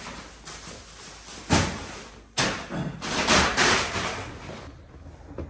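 Plastic shopping bags rustling and being dropped while a shopping cart is unloaded, with a sharp thud about a second and a half in and another just after two seconds.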